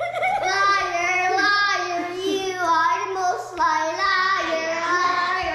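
A young child singing in a high voice, holding each note and stepping between pitches, with a brief break about three and a half seconds in.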